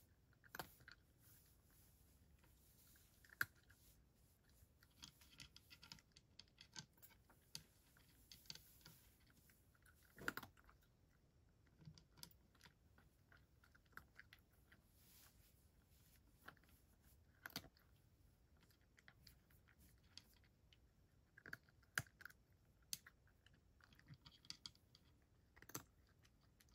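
Cat eating from a bowl: quiet, irregular clicking of its chewing, with a few sharper clicks standing out.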